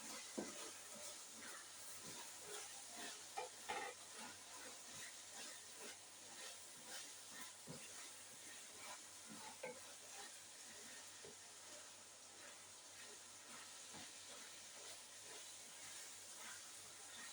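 Food sizzling quietly in a pan, with scattered clicks and scrapes of stirring.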